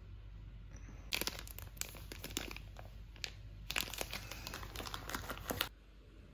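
A small white printed packet crinkling as it is handled in the hand, in two spells of dense crackling: one starting about a second in and a longer one after a short pause, cutting off abruptly near the end.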